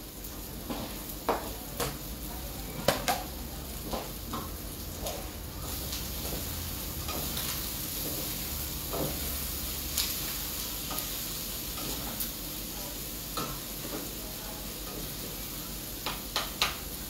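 Liver and onions frying in a skillet with a steady sizzle, stirred with a spatula that scrapes and taps the pan. A few sharper knocks come in the first few seconds and again near the end.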